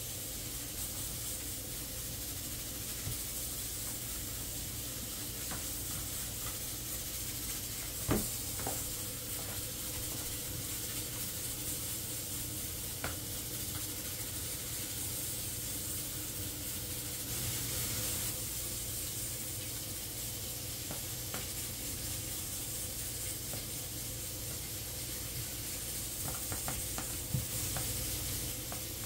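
Steady sizzling hiss of pots and oil heating on a lit gas stove, with a few sharp clicks of a metal fork against plastic bowls as chicken pieces are turned in flour.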